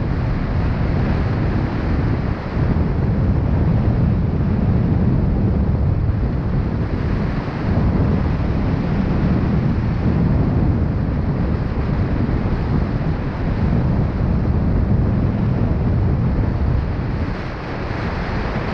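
Wind buffeting the microphone: a continuous low rumble with a rushing hiss above it, swelling and easing a little.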